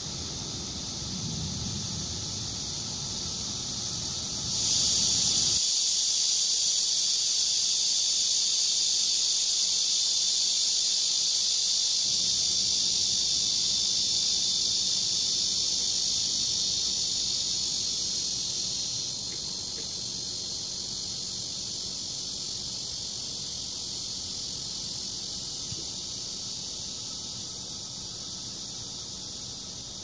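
Cicadas buzzing in a steady, high-pitched chorus. It grows suddenly louder about four seconds in and eases back a little before twenty seconds. A low rumble sits under it during the first five seconds.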